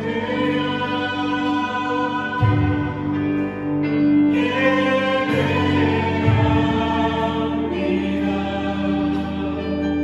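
Live church worship band and singers performing a slow Korean worship song: voices singing together over bass notes that change every few seconds, with a steady held note underneath.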